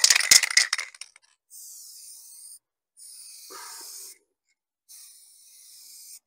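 Aerosol spray-paint can laying a base coat on a canvas: three separate hissing sprays, each about a second long. They are preceded by a short, loud clattering rattle at the start, the can's mixing ball being shaken.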